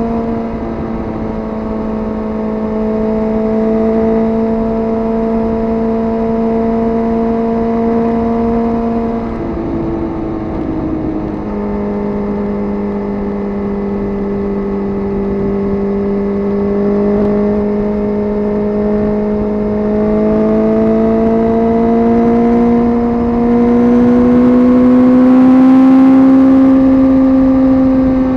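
Suzuki GSX-R sport bike engine running under way with a steady note. About ten seconds in the note breaks off, then comes back lower and climbs slowly as the bike gathers speed.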